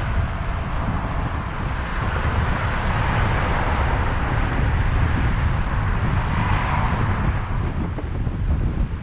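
Wind buffeting the microphone of a camera riding on a moving bicycle, a steady low rumble. Over it a rushing noise swells through the middle and fades near the end.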